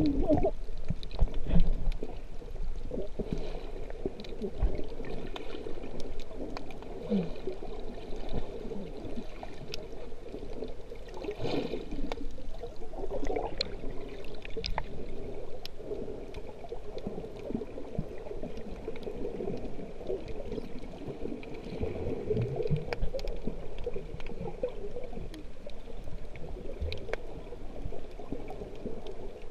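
Muffled underwater water sound heard below the surface over a coral reef: a steady, murky wash with scattered faint clicks.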